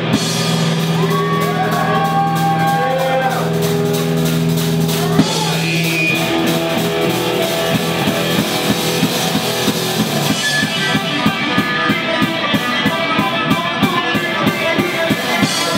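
A live rock band playing: held guitar chords for about the first ten seconds, then the drums come in with a fast, even beat.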